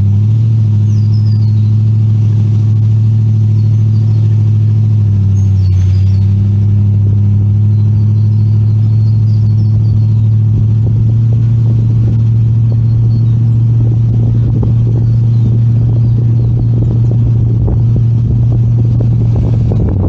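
Car driving, its engine and road noise making a steady low drone, with rougher bumping and rattling building in the last several seconds. Short faint high chirps sit above it in the first half.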